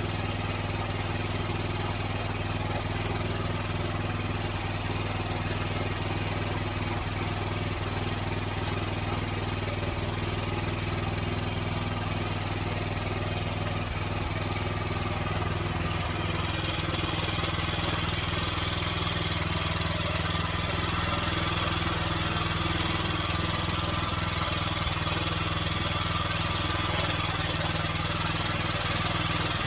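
Norwood Frontier OS23 bandsaw mill's engine running steadily, with a brighter hiss joining about halfway through.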